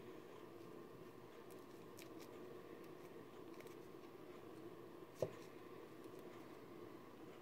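Quiet room tone with faint clicks and rubbing from fingers handling a small flexible 3D-printed plastic cap, and one sharp click about five seconds in.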